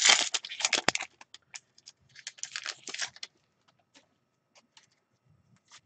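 A trading-card pack wrapper crinkling and tearing as it is opened, loudest in the first second with another crackly flurry a couple of seconds in, then sparse light clicks of cards being handled.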